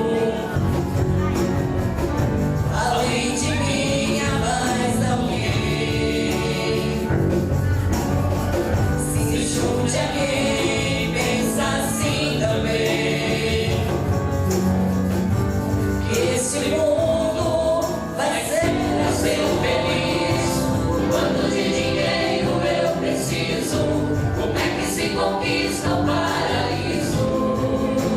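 Live music: a group of voices singing together in choir style over instrumental backing with a steady beat.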